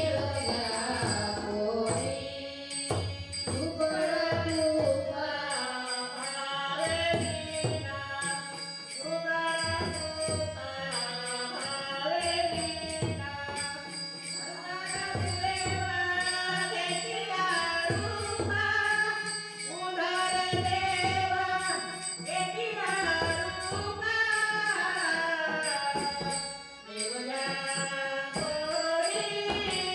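Marathi devotional abhang sung by a woman's voice over a steady beat of a hand drum and jingling percussion.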